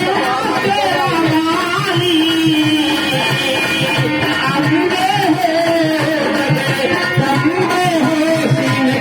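A vandana sung in a melodious voice over a steady dholak beat, with melodic instrumental accompaniment.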